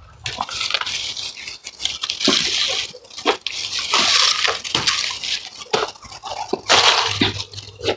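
Apple-tree leaves and twigs rustling in irregular swells, with sharp clicks and snaps, as a branch is handled and apples are picked by hand.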